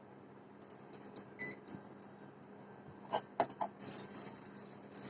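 Light clicks and taps of a spoon and container while a spoonful of baking powder is measured into batter, with a few sharper clinks about three seconds in and a short rustle near the end.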